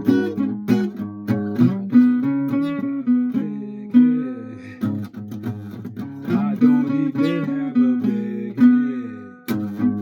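A guitar being played, mixing strummed chords and picked notes, with sliding notes in the middle.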